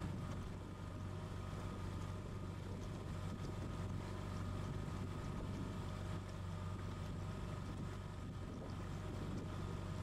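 Outboard motor running steadily as the boat cruises, a constant low hum, with water rushing past the hull and wind on the microphone.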